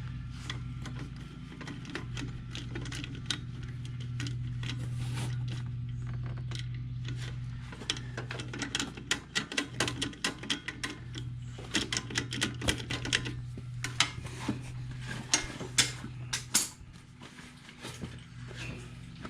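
Metal clicking of a ratchet wrench turning the starter's mounting bolts, light and scattered at first, then quick irregular runs of clicks over a steady low hum.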